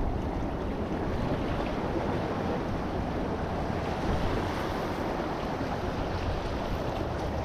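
Ocean waves washing against jetty rocks, a steady rushing surf, with wind buffeting the microphone.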